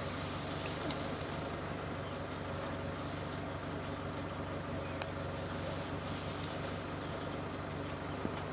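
Steady low hum of an idling vehicle engine under small runs of three or four short, high, falling chirps that come back every few seconds, with a few faint clicks.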